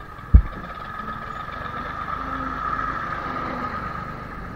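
Tractor engine running as it passes close by, its noise swelling toward the middle and easing off, over the steady running of the rider's own motorbike. A single sharp low thump about a third of a second in.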